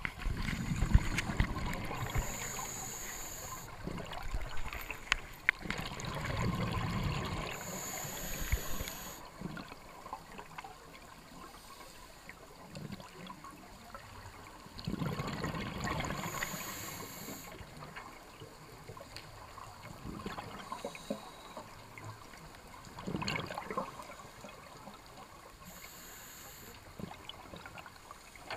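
Scuba breathing heard underwater through a camera housing: a short hiss of inhaled air through the regulator, then a gush of exhaled bubbles, repeating about every six to eight seconds, with a few small knocks on the housing near the start.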